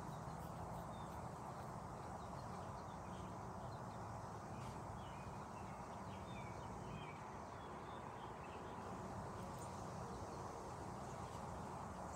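Steady low background noise, with a few faint short high chirps a few seconds in.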